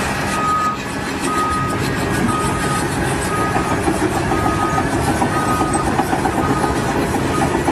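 Vehicle backup alarm beeping about once a second, one steady tone per beep, over a running engine.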